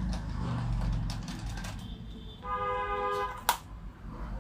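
Light clicks and taps of small laptop parts being handled, over a low steady hum. About two and a half seconds in, a brief horn-like tone sounds for under a second, followed by one sharp click.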